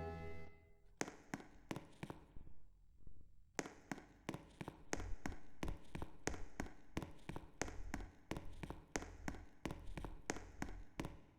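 A loud tone dies away, then a run of quiet, sharp clicks follows, about two or three a second and unevenly spaced, over a faint low hum.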